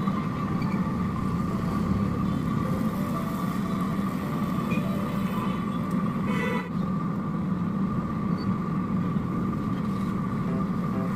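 Hot oil bubbling steadily in a large kadhai as raw banana slices deep-fry, under a steady low din, with faint plucked-string music in the background.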